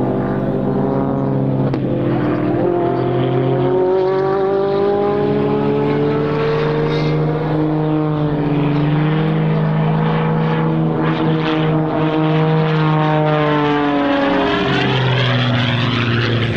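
MXS-RH single-engine aerobatic monoplane's piston engine and propeller during a display routine, its pitch rising and falling slowly as it maneuvers. Over the last few seconds the tones thicken into a web of crossing lines.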